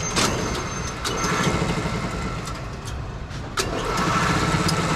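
Brunswick bowling pinsetter running through its cycle after a partial rebuild: a steady machinery hum with sharp metal clanks, the loudest a little past three and a half seconds in.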